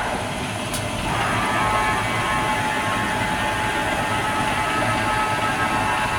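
Drive and spindle of a WOTAN Rapid 2R/12,5 CNC table-type drilling and milling machine running, with a steady whine made of several tones. The pitch shifts during the first second as the speed changes, then holds steady. There is a short click just under a second in.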